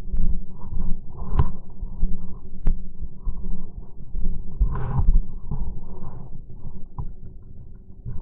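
Irregular low thumps and rustling from a body-worn camera while moving on foot, like footsteps and clothing or gear rubbing, with a few short sharp clicks.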